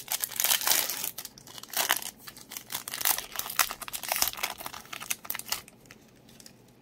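Pokémon Battle Styles booster pack's foil wrapper crinkling and tearing as it is ripped open and the cards are pulled out. The crackling stops near the end.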